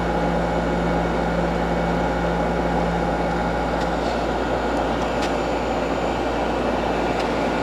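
Window air conditioner running steadily at the back of the unit: condenser fan blowing air over a constant compressor hum, with the base pan drained of its condensate water.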